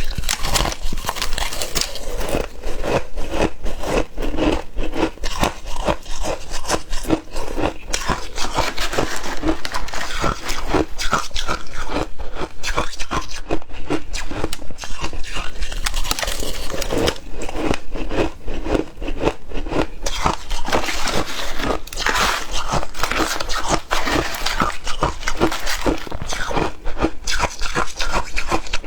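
A person biting and chewing shaved ice: continuous, dense crunching throughout.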